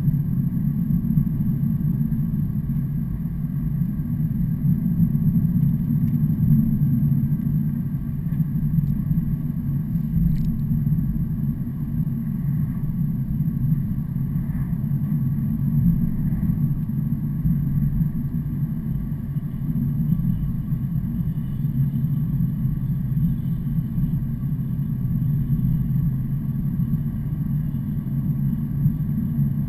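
Steady low rumble of a motor vehicle on the road, engine and road noise holding at an even level with no distinct pass-bys.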